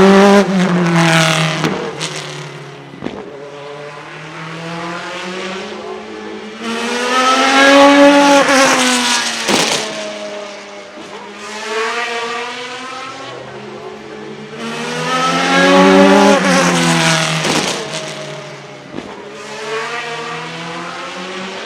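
Naturally aspirated GT1 race car engine accelerating hard in repeated surges. Each time the pitch climbs, then drops sharply at a gear change; the loudest surges come at the start, about 8 seconds in and about 16 seconds in.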